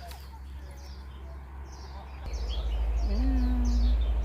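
Small birds chirping, short falling calls repeated a few times a second, over a low wind rumble on the microphone that grows much louder about halfway through.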